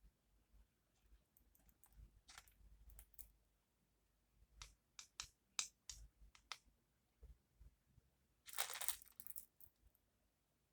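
Small beads clicking against each other as they are handled and strung into a bracelet: scattered light clicks in short runs, with a brief rattle of beads near the end.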